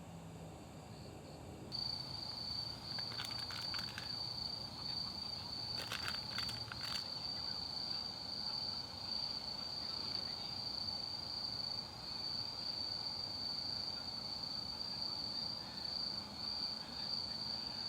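A grass insect, cricket-type, trilling steadily on one high pitch, starting about two seconds in. A few short clicks or rustles come through around three and six seconds.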